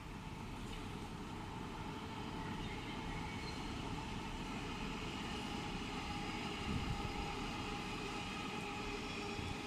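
Electric S-Bahn train passing at a distance: a steady rolling rumble with a faint whine of several tones. Wind buffets the microphone, with a gust about seven seconds in.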